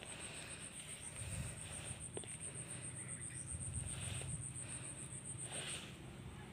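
An insect's high, thin trill in rapid even pulses, stopping shortly before the end, with faint rustling underneath.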